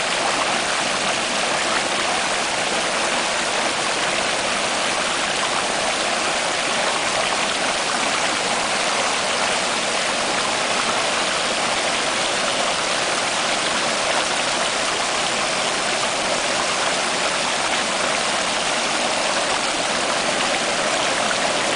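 Water of a small waterfall pouring and splashing over mossy rocks, heard close up: a steady, unbroken rush that stays at the same level throughout.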